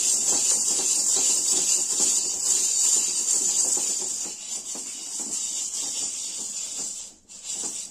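White jowar (sorghum) grains roasting in a hot pan, crackling and rattling as they are stirred and pressed around with a cloth bundle, over a steady hiss. The rattling grows fainter about halfway through.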